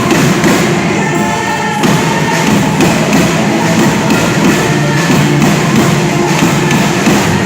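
Percussion band playing: dense, steady drumming in a continuous rhythm.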